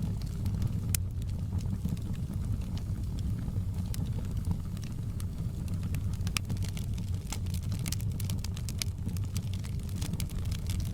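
Wood fire crackling in a fireplace: a steady low rumble of flames with scattered sharp pops and crackles, more frequent in the second half.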